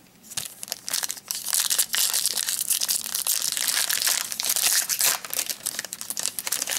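Foil wrapper of a 2012 Topps Strata football card pack crinkling as it is handled and torn open. The dense, crackly noise starts just after the start and stops near the end.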